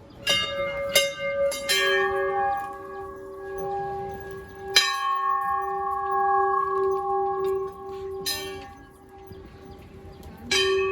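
Hanging temple bells struck about six times, each strike ringing on with a long, slowly fading tone; bells of different pitches overlap.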